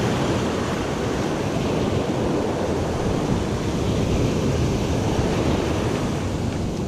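Steady rush of ocean surf breaking and washing up a sandy beach.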